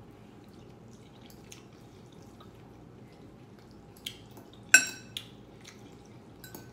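Metal fork working ramen noodles in a glass bowl: faint clicks and scrapes, then one sharp, ringing clink of fork on glass a little under five seconds in, followed by a couple of lighter taps.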